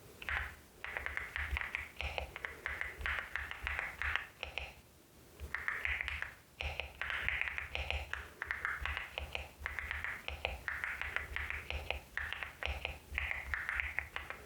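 LEOBOG HI75 mechanical keyboard with Nimbus V3 switches being typed on: quick runs of keystrokes broken by short pauses, each press a sharp clack with a low thud under it.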